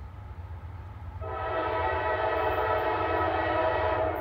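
Norfolk Southern AC44C6M diesel locomotive's multi-chime air horn sounding one long, steady blast of about three seconds that starts about a second in, the train's warning as it approaches a grade crossing.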